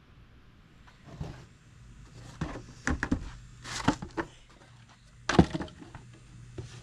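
A handful of irregular knocks and thuds with a short scraping rush, from handling a plant pot and soil while topping it up, over a faint steady low hum.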